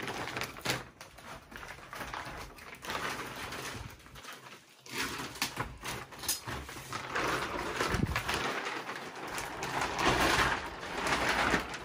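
Plastic wrapping being cut and pulled off a rolled mattress, crinkling and rustling in irregular bursts with a few sharp clicks. There is a short lull about four seconds in, and the rustling is densest near the end.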